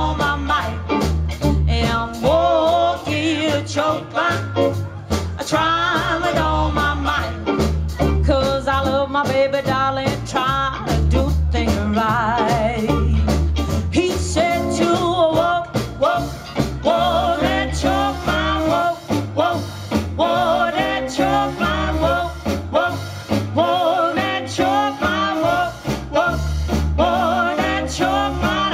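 Live rockabilly rhythm-and-blues band playing with a steady swing beat: upright bass, drums, electric guitar and saxophone, with the saxophone carrying the melody in an instrumental break between sung verses.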